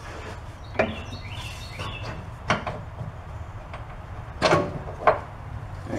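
Scattered knocks and clunks as an old rear shock absorber on a Chevy Astro van is worked off its upper mounting stud, with a brief squeak about a second in. A steady low hum runs underneath.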